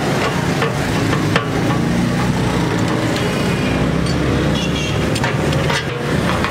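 A steady hiss with a low hum underneath, and a few light clicks of metal being handled.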